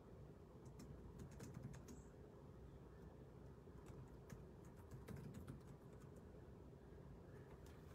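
Faint typing on a computer keyboard: scattered soft key clicks at an uneven pace.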